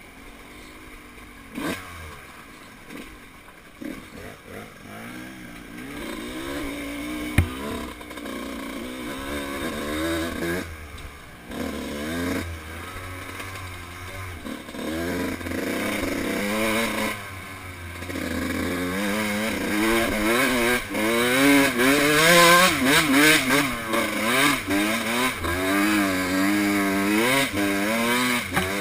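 Dirt bike engine revving up and down again and again as the rider works the throttle and climbs, growing louder in the second half. There is a single sharp knock about seven seconds in.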